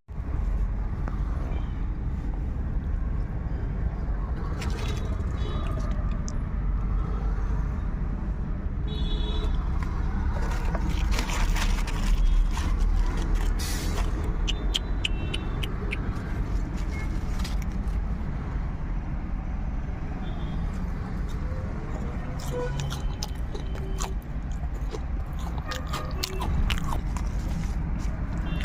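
Street traffic noise: a steady low rumble of passing vehicles, with scattered clicks and scrapes and a few short tones.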